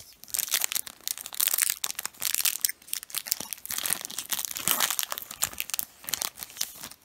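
Foil wrapper of a Pokémon trading-card booster pack being torn open and crinkled by hand: a dense, fast crackling rustle.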